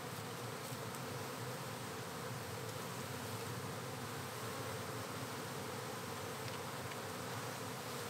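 Steady hum of a great many honeybees in flight, a colony whose comb has just been cut out, with the displaced workers circling back to where their hive hung.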